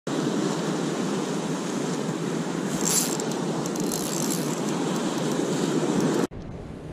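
Steady, loud rushing noise of a logo intro sound effect, with a brief bright glittering sparkle about three seconds in; it cuts off suddenly near the end, leaving quieter outdoor ambience.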